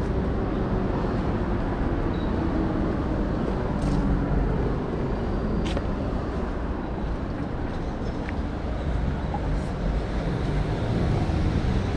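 Steady city street traffic: a continuous low rumble of passing cars, with a couple of faint ticks.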